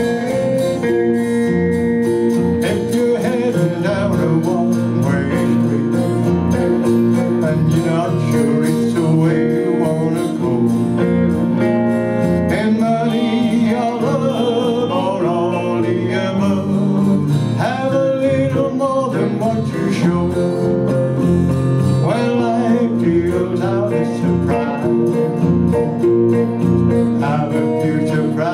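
A small live band playing: acoustic guitar, electric guitar and electric bass together, at a steady, full level.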